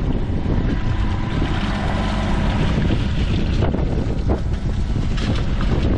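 Mini digger's engine running as its bucket digs and lifts spoil from a waterlogged trench, with wind buffeting the microphone.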